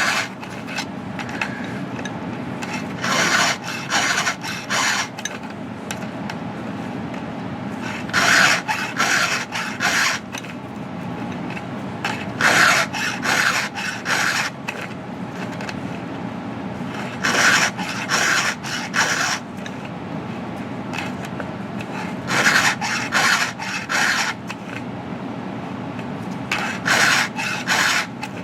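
Chainsaw chain being sharpened with a hand file: rasping file strokes across the cutters in clusters of several quick strokes, about every four to five seconds, over a steady low hum.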